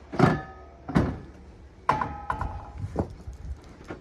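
Bent metal rack piece being handled, clanking four times; the first and third knocks ring on briefly like struck steel.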